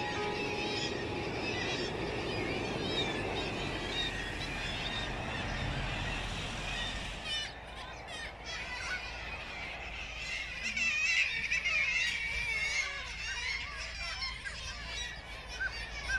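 A colony of gulls calling: many birds at once, short overlapping cries with no pause, growing denser and louder in the second half.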